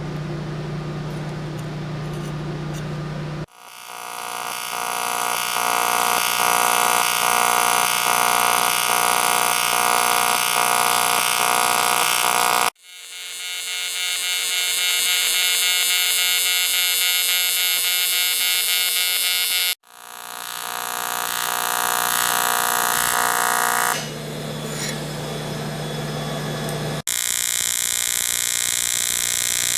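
AC TIG welding arc on aluminum from an HTP Invertig 400 inverter welder, buzzing steadily with a high electric hum. The buzz stops abruptly and starts again several times, with quieter humming stretches between.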